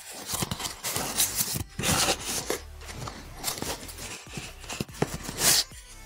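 Cardboard shipping box being torn open and handled by hand: irregular rustling, scraping and tearing of cardboard and paper, with a few short knocks.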